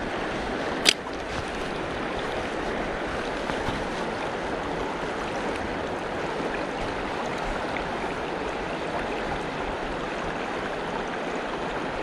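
Mountain stream running steadily, with a single sharp click about a second in.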